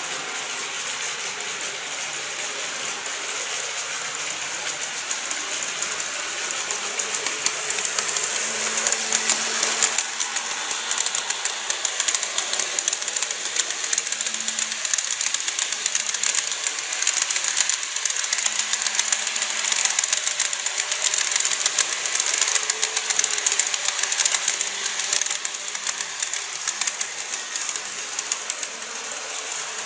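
Model train running on track: a model EH200 electric locomotive pulling a long string of Taki 1000 tank cars, with a fast, steady clatter of small wheels on the rails. It grows louder through the middle as the cars pass close, then eases off near the end.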